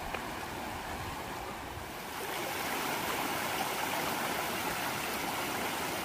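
A shallow mountain stream running over rocks: a steady rush of water that grows louder about two seconds in.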